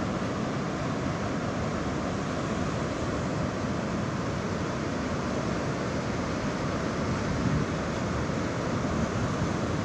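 Sea surf washing steadily onto a beach, an even rushing noise.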